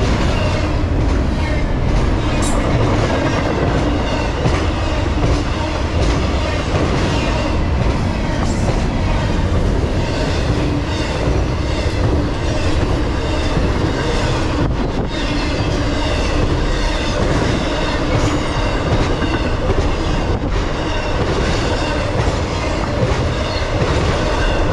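Intermodal freight train of double-stack container and trailer cars rolling past: a steady, loud rumble of steel wheels on rail, with short high squeals and the odd sharp clank.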